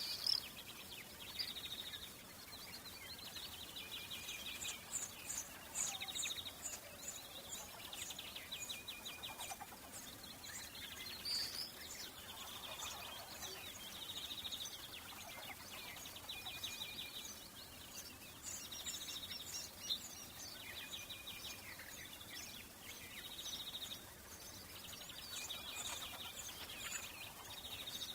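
Several songbirds singing and chirping over a faint steady outdoor background, with repeated fast trilled phrases and short high chirps following one another.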